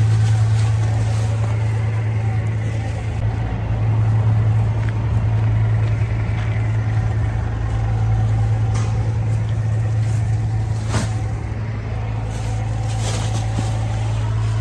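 Steady low hum of running machinery, with garbage-bag rustling and a few sharp knocks, the loudest about eleven seconds in.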